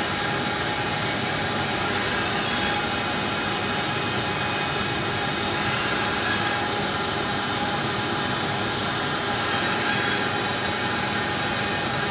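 LPKF Protomat S62 PCB milling machine's high-speed spindle running steadily as a 2 mm mill bit cuts the mounting holes in a copper-clad board, with a high squealing whine. A sharper high hiss of cutting comes and goes about every three to four seconds.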